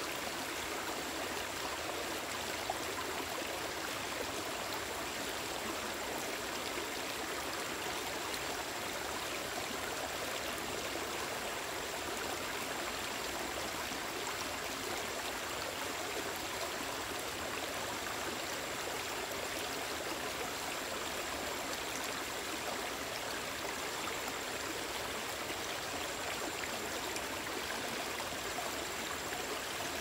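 Shallow stream running over small rocks and stones, a steady, even rush of water.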